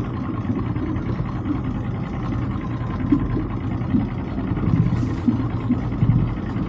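Boat's outboard motor running steadily at low speed.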